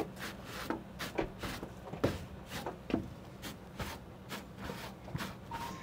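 Work boots on a wooden deck and steps: scuffs across a bristle boot-cleaning brush and footsteps, heard as light knocks about three a second over a steady low hum.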